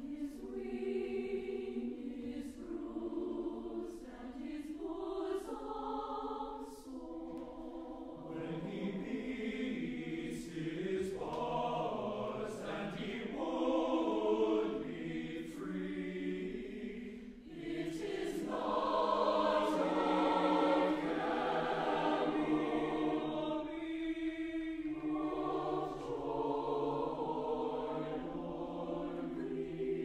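A choir singing a slow piece in sustained chords, swelling louder past the middle. Short hisses of sung consonants cut through now and then.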